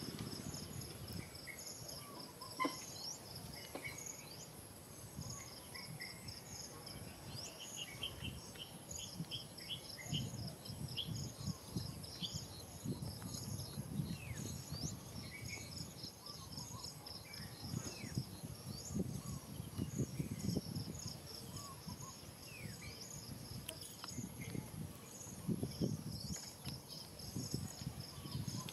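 Insects chirping in a fast, even pulsing rhythm, with a few short scattered chirps and low rustling underneath.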